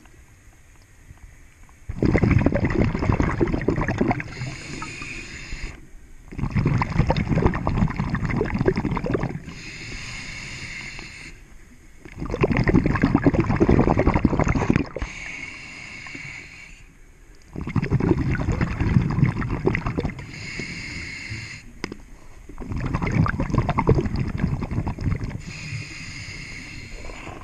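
Scuba diver breathing underwater through a demand regulator: a higher hiss on each inhale, then a longer, louder rush of exhaled bubbles. About five breaths, one roughly every five seconds.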